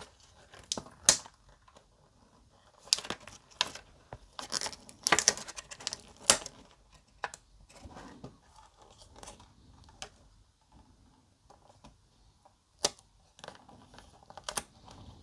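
Small plastic model-kit parts being handled and worked into place by hand: scattered sharp clicks and short rustling scrapes, with quieter pauses between.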